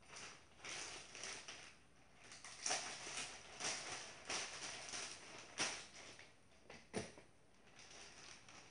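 A plastic bag rustling and crinkling in irregular bursts as it is handled and shaken out, with a sharp tap about seven seconds in.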